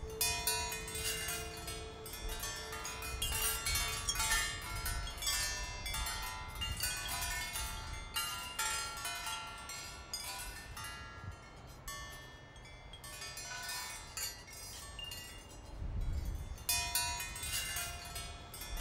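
Metal wind chimes ringing in irregular clusters of strikes over a low rumble. The ringing thins out for a few seconds past the middle and grows busy again near the end.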